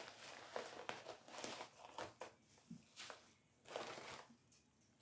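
Faint crinkling and rustling of mail packaging being handled as items are taken out of it, in irregular short rustles that thin out toward the end.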